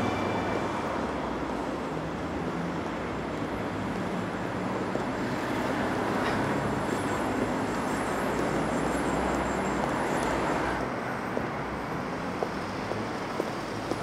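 Steady hum of city street traffic. Near the end, footsteps on the pavement come in, about two steps a second.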